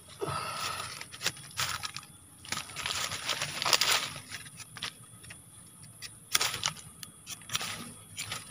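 Dry leaves, grass stalks and loose soil being scraped and brushed aside by hand and with a stick, in irregular rustles and short scratches, busiest about three to four seconds in.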